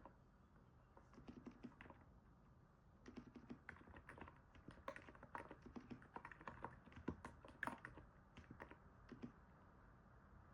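Typing on a NIZ 68 Pro electrostatic capacitive keyboard: soft, irregular keystrokes in short runs with brief pauses, stopping about a second before the end.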